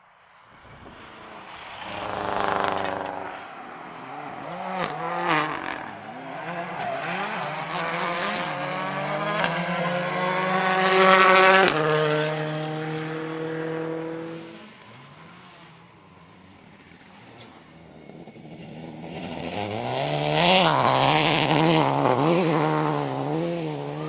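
Rally car engine revving hard through gear changes at speed, rising to a peak and dropping sharply in pitch about halfway through as the car goes by. After a brief lull the engine note builds again near the end.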